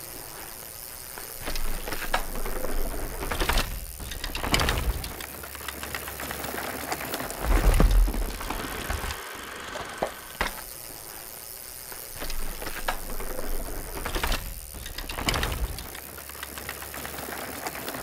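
Mountain bike sounds laid in as sound effects: knobby tyres rolling over packed dirt, with repeated whooshes as riders pump through rollers and berms. Scattered clicks and low thuds of bikes landing, the heaviest about eight seconds in.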